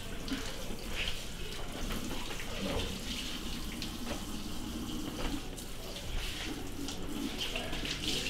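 Kitchen tap running steadily into a sink, with a few light knocks.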